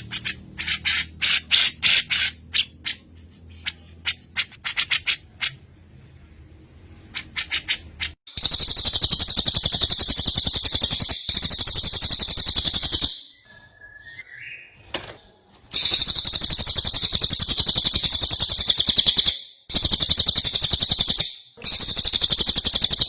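Songbird training recording of cucak jenggot and cililin calls. It opens with a string of short, sharp chirps, then from about eight seconds in gives long, high, rapid buzzing trills in several runs, each broken by a brief pause.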